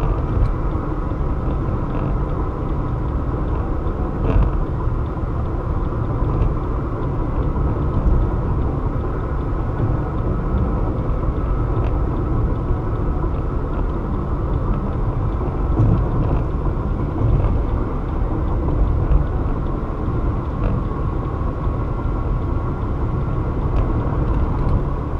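Car driving at highway speed: a steady low rumble of tyre and road noise with engine.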